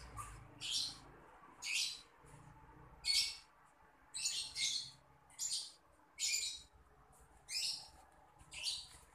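A bird calling with short, harsh chirps, repeated about once a second.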